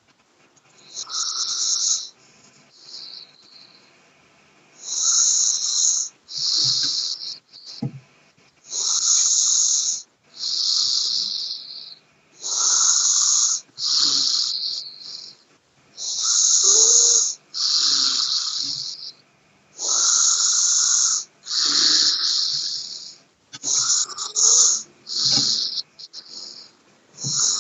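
A sleeping person snoring, each breath a hissy, wheezy rasp. The breaths come in pairs, in and out, about every four seconds.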